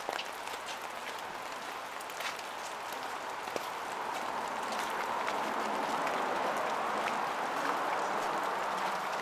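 Steady rain with scattered drops ticking close by, over a rushing stream that grows louder from about three seconds in.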